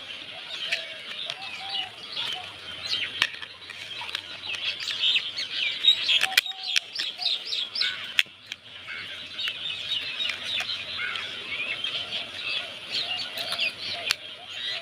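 Many small birds chirping continuously in quick, overlapping short calls, with scattered light clicks.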